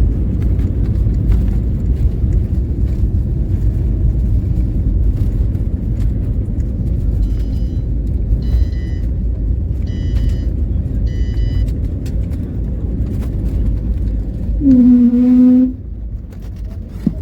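Steady low rumble of an Airbus A320neo's cabin during the landing. Four short high electronic beeps come in the middle, and a loud, steady low hum lasts about a second near the end.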